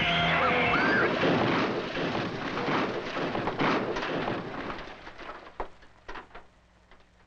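A car crashing off the road and tumbling down a rocky hillside: a dense run of crashing, scraping and repeated impacts. About five seconds in it dies away into a few scattered clatters of falling debris.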